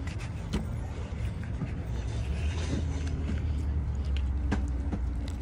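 Low steady hum inside a car's cabin, with a few scattered clicks and soft mouth noises as a man bites into a steak sandwich.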